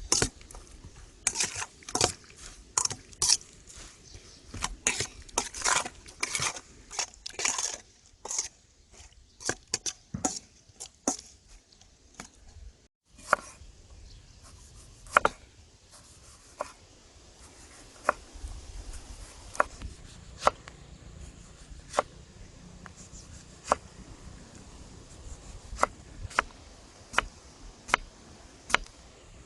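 Kitchen utensils knocking and scraping during food preparation. A quick, dense run of knocks and scrapes lasts about twelve seconds, then after a brief break come single light clicks about once a second, with a low hum underneath later on.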